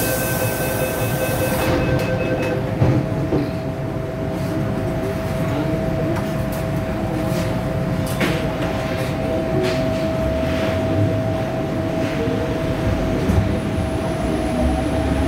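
Inside an MTR M-Train electric multiple unit, the door-closing warning tone sounds with a hiss as the doors close, and they shut about three seconds in. The train then runs through the tunnel, with a continuous rumble of wheels on rail and a steady motor whine.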